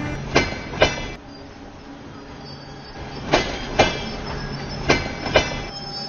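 Passenger train rolling slowly past, its wheels clacking over rail joints in pairs about half a second apart, each clack with a metallic ring. Three such pairs come over a steady low rumble.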